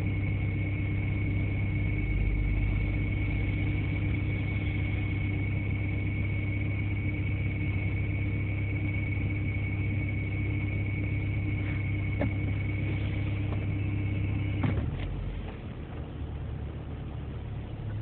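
Toyota Estima Hybrid (AHR10W) running with a steady high-pitched whistling whine, a "hii" like a roast-sweet-potato vendor's whistle, over a low hum: an abnormal noise from the generator inside the hybrid transmission. About 15 seconds in, the whine and the hum cut off together with a click.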